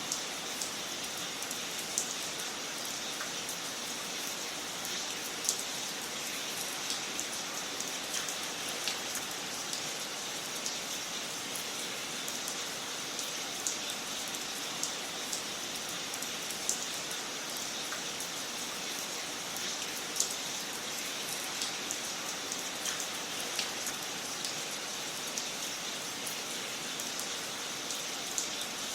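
Wood fire burning in a fireplace: a steady hiss with scattered sharp crackles and pops, a few louder ones standing out.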